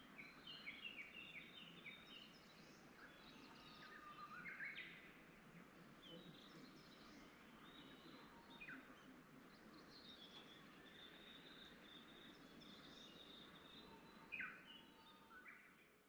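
Wild songbirds singing at dawn: several birds' faint chirps, trills and whistled notes overlapping, over a steady low background noise, fading out at the end.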